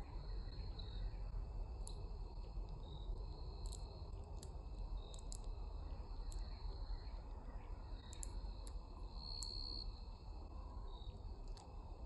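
Insects trilling steadily in several high overlapping tones, with many short, sharp high chips scattered throughout, typical of small birds calling around a backyard feeder, over a constant low outdoor rumble.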